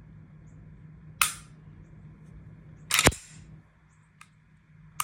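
Smith & Wesson SD9 9mm pistol being dry-fired: a few sharp metallic clicks of its action, the loudest a close double click about three seconds in.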